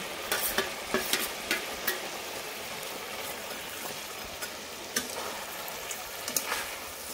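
Reduced tomato-and-spice gravy sizzling in a pan as fried small fish are added and stirred in. A utensil clicks and scrapes against the pan in a quick run during the first two seconds, and a few times more near the end.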